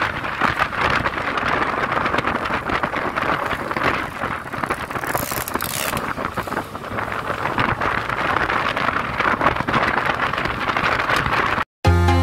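Wind buffeting the microphone over road and engine noise from a Yamaha Lexi scooter riding at speed. It cuts off near the end, and electronic dance music starts.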